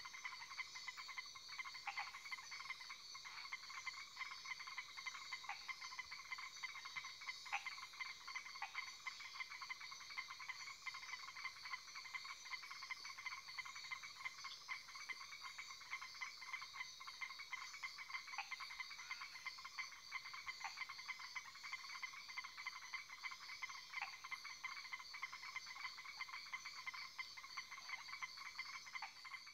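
A dense chorus of frogs calling, many overlapping in steady pulsing trills, with single louder calls standing out every few seconds.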